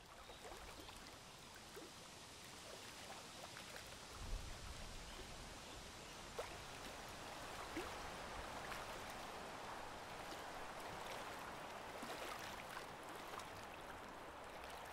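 Faint, steady water lapping and trickling with small scattered ticks, slowly growing a little louder.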